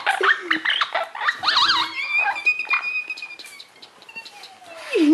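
Young yellow-cheeked Amazon parrot calling as it wrestles with a hand: quick wavering chatter, then one long, steady, high whistle, with a few small clicks.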